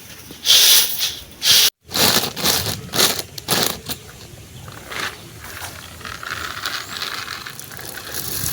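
Shelled groundnuts rattling and scraping against a woven winnowing tray as they are tossed to blow off the red skins. The clatter comes in a run of sharp bursts in the first four seconds, then settles to a softer, steady rustle.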